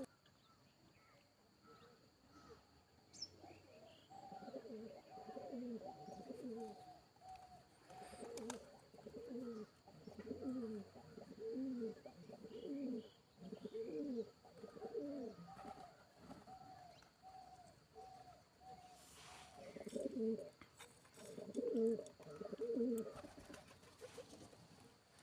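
Pigeon cooing: a long series of low, falling coos repeating about twice a second, loudest near the end.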